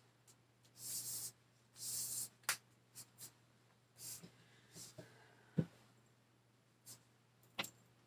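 Fabric rustling as a lightweight jacket is handled and worn: two short hissy brushes about a second apart near the start, then scattered light clicks and taps and one louder thump about halfway through, over a faint low steady hum.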